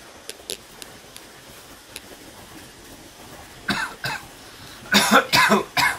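A person coughing: two coughs a little before four seconds in, then three louder coughs in quick succession near the end. A few faint clicks come earlier.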